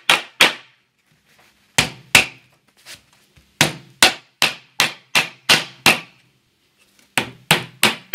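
Hammer driving small nails through a wooden strip into a radio's front fascia: sharp strikes in short runs of about two or three a second, with a pause of about a second between runs.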